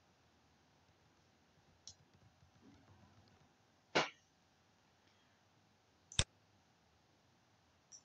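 A few sharp, isolated clicks from a computer keyboard and mouse during slide editing, with two louder clicks about four and six seconds in and fainter ones between.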